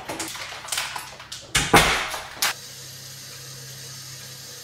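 A door handle and latch clicking, with a few knocks, then a kitchen tap running steadily into a kettle.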